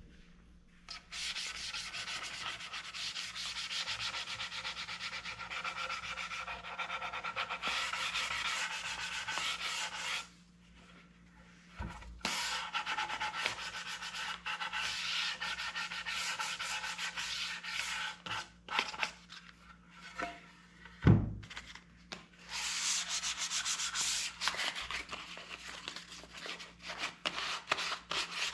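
Sandpaper rubbing on the wood of a stool part, sanding in long stretches with short pauses about ten and twenty seconds in. There is a low knock near the middle and a louder one about two-thirds through.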